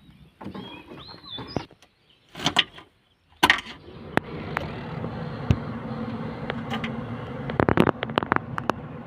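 A few knocks and scrapes, then from about three and a half seconds a heavy diesel engine running steadily, with a cluster of sharp clicks and knocks near the end.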